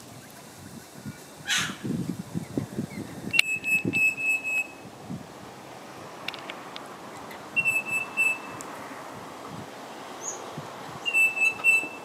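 Twenty-eight parrot (Australian ringneck) whistling: three runs of short, high notes held at one pitch, each run about a second long, the first about three seconds in, one near the middle and one near the end. About a second and a half in, a wattlebird gives a single rusty, hoarse call.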